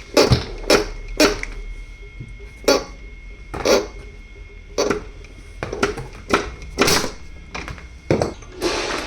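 Small metal parts and hand tools clicking and clinking, about a dozen irregular sharp knocks, against a low steady hum.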